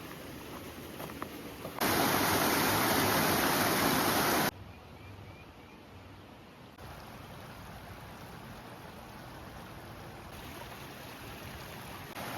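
Rushing water of a small waterfall and stream, heard across several clips that cut abruptly from one to the next; the loudest, closest rush lasts about two and a half seconds, starting about two seconds in. A few faint high chirps sound near the middle.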